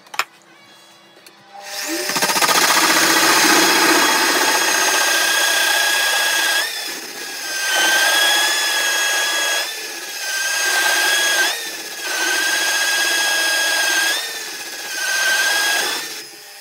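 Pillar drill starting about two seconds in and running with a hole saw cutting into oak. Its steady whine sags in pitch and level several times as the saw bites under load, then it winds down near the end.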